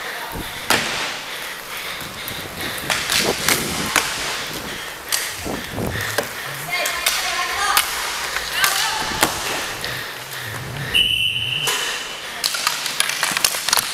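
Inline hockey play on a sport-court rink: repeated sharp clacks of sticks and puck and the rolling of skate wheels, with players' voices in the background. About three-quarters of the way through comes a short, high, steady tone.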